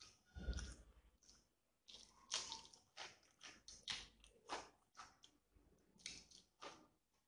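Close-miked wet chewing and lip-smacking of a mouthful of rice and egg curry eaten by hand: an irregular run of short, moist smacks, one or two a second.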